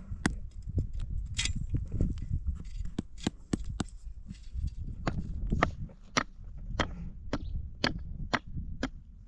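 Repeated sharp knocks, about two a second and unevenly spaced, over a low rumble.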